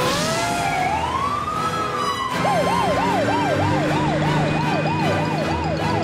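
Fire engine siren wailing in slow rising and falling sweeps, then switching abruptly, about two seconds in, to a fast yelp of about three to four sweeps a second.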